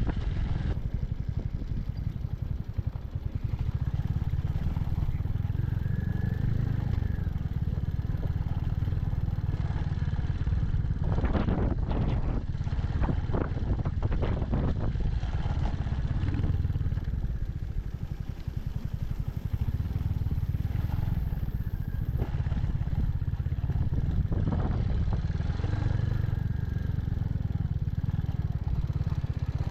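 Royal Enfield Hunter 350's single-cylinder engine running steadily under way, with a short run of clattering knocks about eleven to fifteen seconds in.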